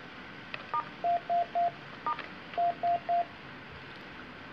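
Keys pressed twice on a Panasonic KX-T7730 system phone in programming mode; each press gives a short higher beep followed by three short, evenly spaced beeps of a lower pitch.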